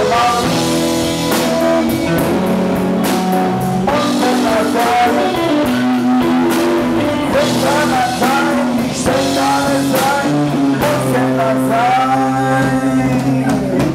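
Live blues-rock band playing between vocal lines: electric guitar over bass guitar and a drum kit, the guitar's notes bending up and down.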